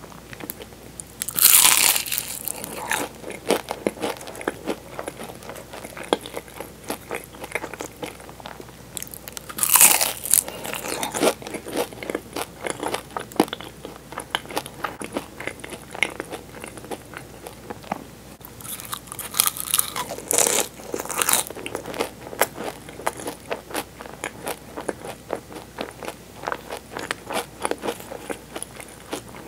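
Close-miked bites into Portuguese-style egg tarts, the flaky pastry crust crunching loudly three times: near the start, about a third of the way in and about two-thirds in. Between the bites come steady chewing clicks and crackles.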